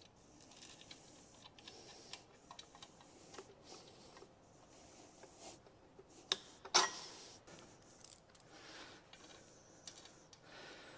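Hand ratchet wrench working the perimeter fasteners of a Twin Disc torque converter housing: repeated short spells of fast ratchet clicking with small metallic clinks, and one sharp metal clink about seven seconds in.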